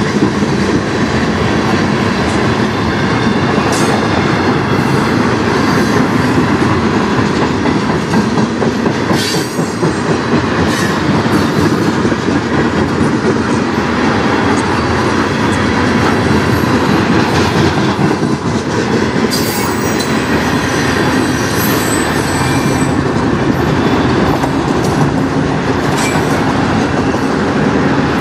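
Freight cars (tank cars, then autoracks) rolling past close by: a steady, loud rumble of steel wheels on rail. Occasional sharp clicks come at the rail joints, and brief high wheel squeals sound past the middle.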